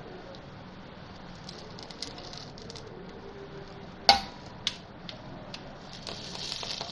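Chicken pieces being laid on a metal wire grill rack: a sharp clack about four seconds in and a smaller one just after, then a soft sizzle near the end as the marinated piece goes down, over a steady low hiss.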